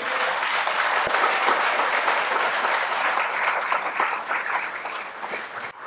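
Audience applauding, starting at once and tapering off near the end.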